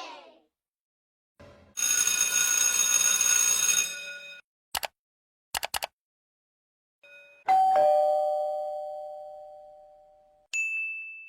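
A string of separate sound effects: a two-second buzzing, ringing sound, a few sharp clicks, then a two-note doorbell ding-dong, a higher note followed by a lower one, fading slowly. A short high beep follows near the end.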